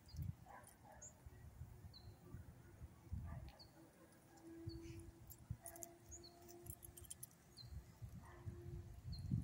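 Quiet outdoor ambience: faint rustling and soft thumps of footsteps and leash handling on grass, with faint short high chirps about once a second.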